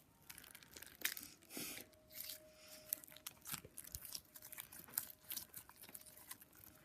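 Homemade borax-and-glue slime being squeezed and stretched by hand, making irregular sticky clicks and crackles.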